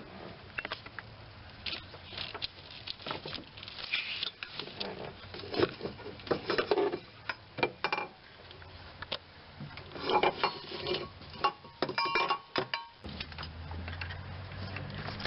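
Metal hand tools clinking and clattering against each other and the engine as the tools holding the belt tensioner are taken off: a string of irregular clicks and knocks, some with a brief metallic ring.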